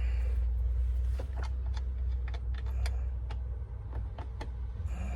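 Scattered small metal clicks and taps from a screwdriver and bits being tried on a sun visor's star-head mounting screws, over a steady low rumble.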